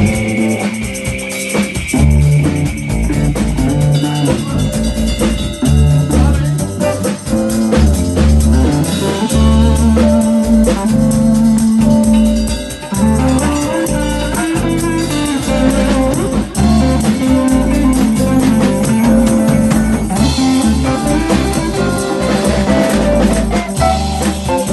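Instrumental jam: a drum kit playing busily under guitar and deep, changing low notes.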